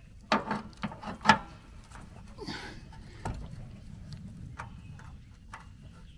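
A wrench clinking against a nut and the steel steering linkage under a riding lawnmower: several sharp metallic clicks in the first second and a half, a brief rustle, then scattered lighter taps.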